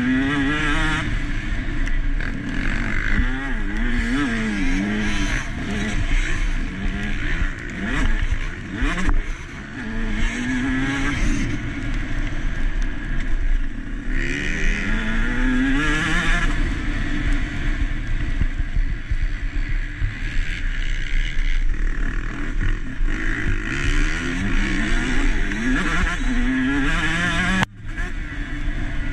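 KTM SX 150 two-stroke motocross bike's single-cylinder engine, heard from on board, revving up and dropping back again and again as the rider accelerates, shifts and backs off around the track. The sound dips sharply for a moment near the end.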